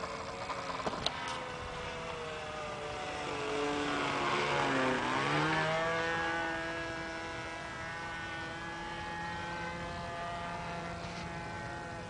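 OK Model Commander 123 model aircraft engine running in flight, a steady propeller drone that grows louder around the middle as the plane passes close, its pitch sliding down and then jumping back up.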